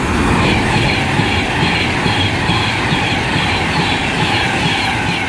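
Class 390 Pendolino electric train running past the platform: a loud, steady rush of wheels on rail.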